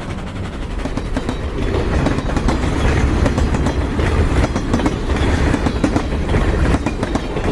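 Train sound effect for a giant flying ghost train creature: a loud, steady deep rumble with dense, rapid clattering knocks running throughout.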